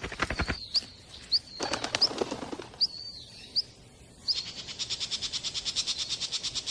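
Small birds chirping in short, high notes with quick pitch flicks and bursts of rapid clicks. From about four seconds in, a fast, even rattle of about nine pulses a second carries on.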